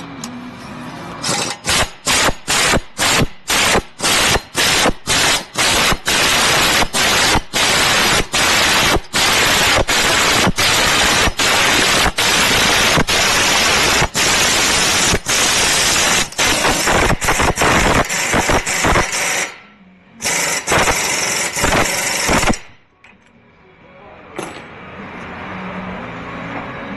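Pneumatic power tool hammering in loud bursts, probably on the wheel hub or bearing during a front wheel bearing replacement: short bursts about twice a second at first, then long runs with brief pauses. It stops about 19 seconds in, runs once more for about two seconds, then stops.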